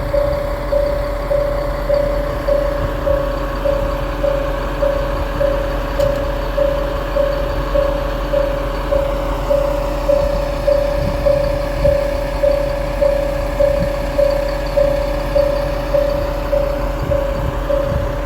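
Japanese railway level-crossing warning bell ringing continuously: an electronic 'kan-kan' ding repeating evenly about twice a second, signalling an approaching train. A low engine rumble runs beneath it.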